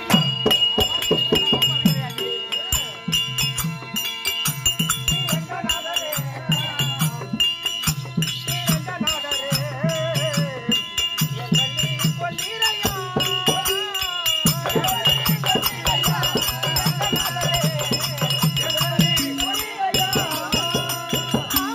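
Therukoothu folk-theatre music: a drum beats a steady repeated rhythm, small cymbals or rattles clink sharply with it, and a wavering melody runs over a held high reed tone.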